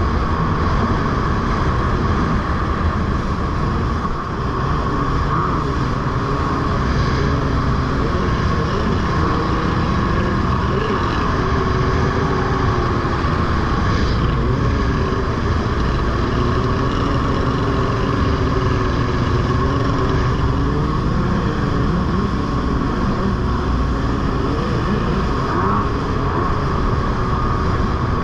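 Jet ski engine running steadily at speed, its pitch wavering slightly up and down, over rushing water.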